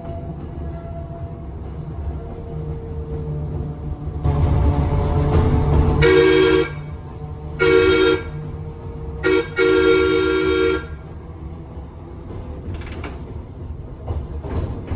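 Electric trolley's air whistle blown four times over the low rumble of the running car: two short blasts, a quick blip, then a longer blast, each a steady chord. A loud rushing noise lasts about two seconds just before the first blast.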